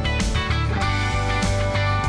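Background music: a guitar track with a steady beat and bass.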